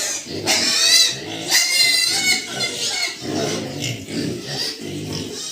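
Large White Yorkshire piglets squealing and grunting: loud, high-pitched squeals in the first couple of seconds, over low grunting that runs on throughout.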